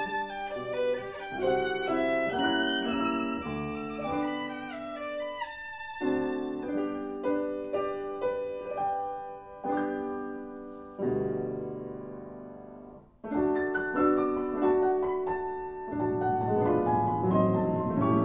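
Instrumental music score: a melody played in phrases, each starting sharply and fading, with a short break about two-thirds of the way through.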